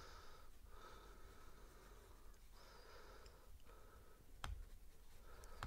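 Near silence: faint breathing close to the microphone, in soft breaths about a second apart, with a single small click about four and a half seconds in.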